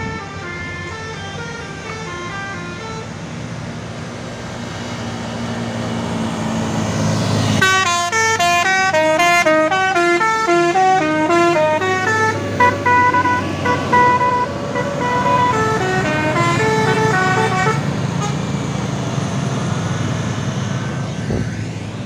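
Tour bus's Basuri horn, a multi-note musical air horn, playing melodies of stepped notes over the bus's running engine. The engine swells about six seconds in, and the loudest, quickest run of notes comes from about eight to twelve seconds in, with more tunes following until about eighteen seconds.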